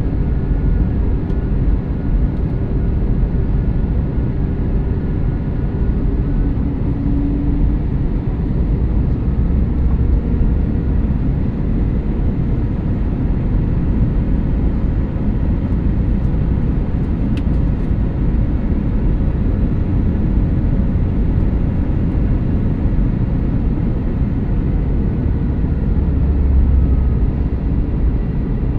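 Steady cabin noise of an Airbus A321neo LR airliner in flight: a low rumble of engines and airflow with faint steady engine tones.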